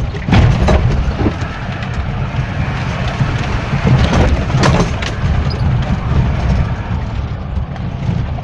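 Mitsubishi Pajero driving through mud, heard from inside the cabin: a steady low rumble with many sharp knocks of mud clods hitting the windshield and body as it bounces along the rutted track.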